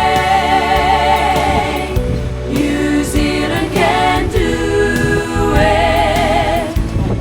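Background music: a song with voices holding long notes with vibrato over a steady bass line.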